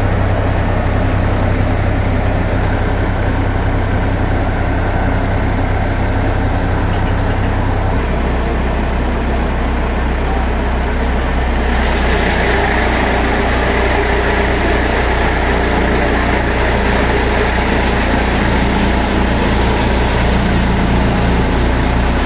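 Tractor-driven chaff cutter running off an Eicher tractor's PTO: a steady diesel engine hum under the spin of the cutter and its blower, the engine note dropping a little about eight seconds in. From about twelve seconds in a much louder hiss of chopping and blowing joins as green fodder stalks are fed into the cutter.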